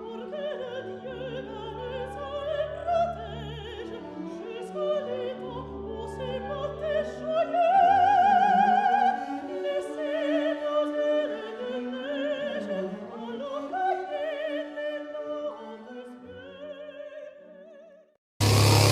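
Operatic singing with strong vibrato over classical orchestral accompaniment, with sustained low bass notes. It fades out and is cut by a short, loud burst of noise near the end.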